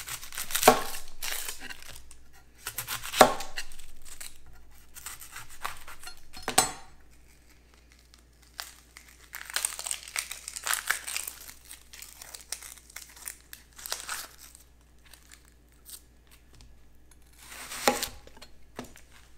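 Chef's knife cutting into a red onion on a plastic cutting board, with three sharp knocks of the blade in the first seven seconds. In the middle the onion's dry, papery skin crinkles and tears as it is peeled off by hand, and near the end the knife cuts into the onion again.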